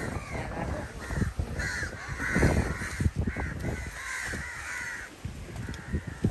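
Several crows cawing, one harsh call after another about twice a second, over a low rumbling background noise.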